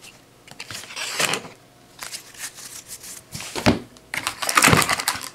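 Trading cards and a foil card pack being handled by hand: scattered soft rustles and taps, then a stretch of dense crinkling from the foil wrapper in the last second or so.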